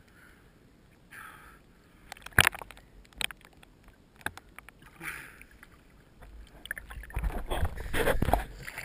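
Seawater sloshing and splashing around an action camera held at the surface, with a few sharp knocks of water on the housing. Louder, heavier splashing over the last two seconds as a snorkeler in the water comes up close to the camera.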